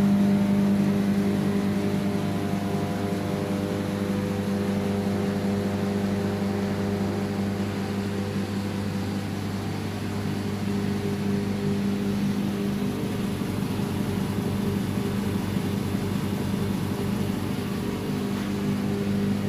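Oil-free vacuum pump of an automatic screen exposure machine running with a steady low hum. It is drawing the screen and film down against the glass to pull out the air bubbles.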